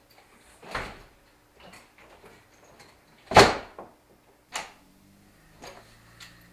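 A wooden interior door being opened and pushed shut by hand: several sharp knocks and latch clicks, the loudest thud coming about three and a half seconds in.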